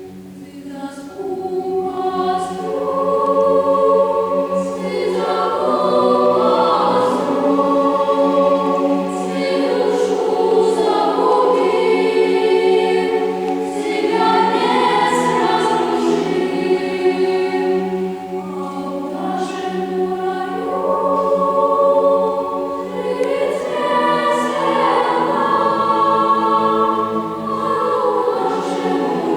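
A choir singing in long, sustained phrases, the sound swelling and easing between phrases.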